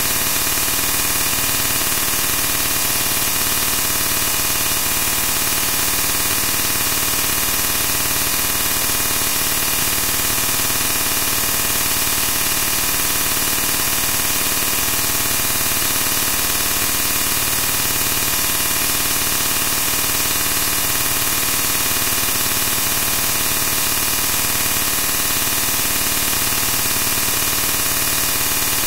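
Steady, loud hiss of white-noise static, even and unchanging throughout, strongest in the high range.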